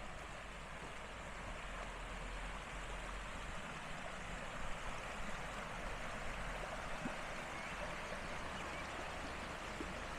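Stream of winter rainwater rushing steadily, with a low rumble underneath.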